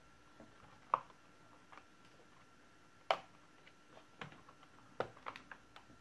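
Scattered sharp plastic clicks and taps from a laptop's underside compartment cover being pried loose and handled, about half a dozen, the loudest about three seconds in and several small ones close together near the end.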